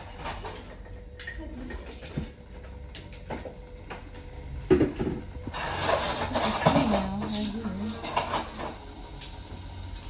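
Dishes, pots and utensils clinking and clattering from someone cooking, busiest about halfway through, with television voices in the background.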